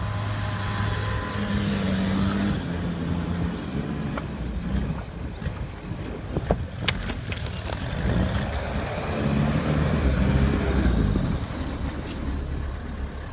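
SHERP all-terrain vehicle's diesel engine running as it drives over rough, rubble-strewn ground, its pitch rising and falling with the throttle. A few sharp cracks come about seven seconds in, and the engine is loudest as the vehicle nears, around ten seconds in.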